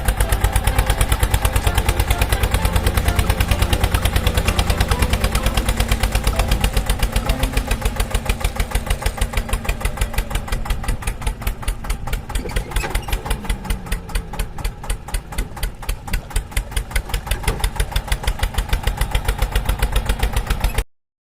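Engine running at idle with an even, rapid chugging beat, about five beats a second, that cuts off suddenly near the end.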